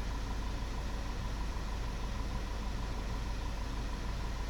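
Volkswagen Tiguan's engine idling, heard from inside the car as a steady low hum. No music comes through, although the aftermarket head unit is playing a song: it has no audio output.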